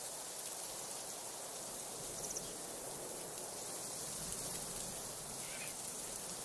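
Steady hiss of outdoor background noise, with a faint, brief high-pitched sound about two seconds in.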